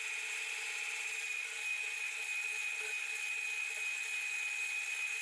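Kenwood hand blender motor running with a steady high whine, blending beaten eggs in its plastic beaker.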